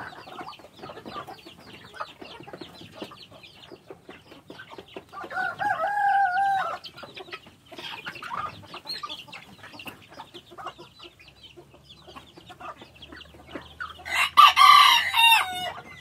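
A rooster crows about five seconds in, and again much louder near the end, over a flock of hens clucking and a steady rapid ticking of beaks pecking scattered grain.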